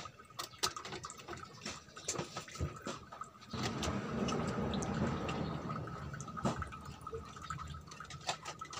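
Small clicks, taps and knocks of wires and parts being handled against an LED TV's metal back panel during reassembly, with a louder rustling stretch of about three seconds starting some three and a half seconds in.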